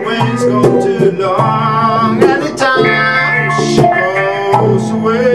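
Ibanez RG1527 electric guitar played through a Korg AX3000G multi-effects processor and a Peavey ValveKing valve amp. It plays a run of sustained, effected notes, some of them bent.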